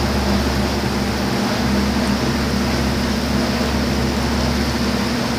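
Steady machine hum with a hiss, running evenly without a break.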